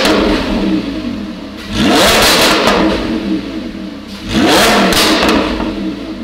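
Lamborghini Huracán's V10 free-revving through a Ryft titanium exhaust. As it opens, a rev is falling back; then two sharp revs come about two and a half seconds apart, each rising fast and falling back toward idle.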